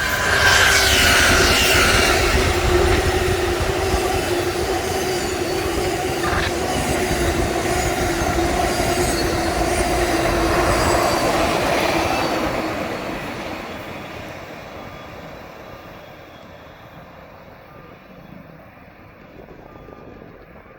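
Amtrak passenger train led by two GE P42DC diesel locomotives passing close by: engines and wheels on the rails, with a steady droning tone. About twelve seconds in, the sound begins to fade away as the train recedes.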